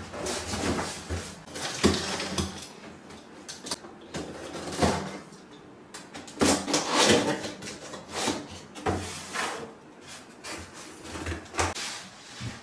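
A cardboard box being cut open along its taped seam with a box cutter and unpacked on a tiled floor: irregular scrapes, rustles and knocks of cardboard.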